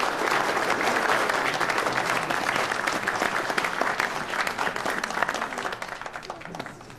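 An audience applauding, many hands clapping in a dense, steady patter that thins out and dies away near the end.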